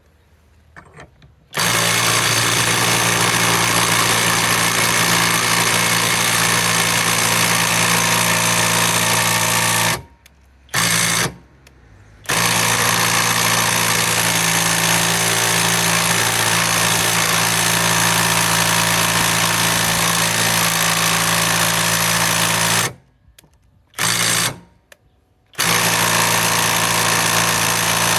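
Kobalt subcompact 3/8-inch cordless impact wrench hammering on a tight fastener, trying to break it loose. It runs in three long bursts of steady hammering, each about eight to ten seconds, with the trigger released briefly between them.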